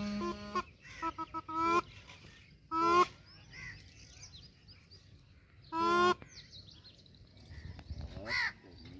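Snake charmer's been (double-reed gourd pipe) blown in short, separate blasts after the tune stops: a few quick ones about a second in, then loud blasts near three and six seconds in and a shorter one near the end. Birds chirp faintly in between.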